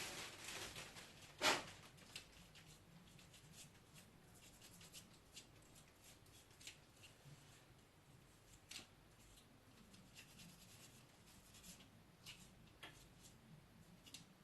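Faint rubbing and small clicks of a disassembled computer fan's parts being handled and wiped clean with solvent, with one sharper click about a second and a half in.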